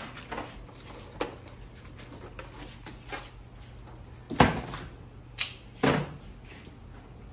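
Engine parts and their packaging being handled on a steel shop counter: a handful of sharp knocks and clunks, the loudest about four and a half seconds in, over a low steady hum.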